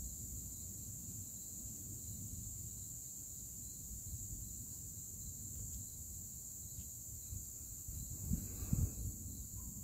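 Crickets trilling steadily over a low background rumble, with a brief louder low rumble about eight seconds in.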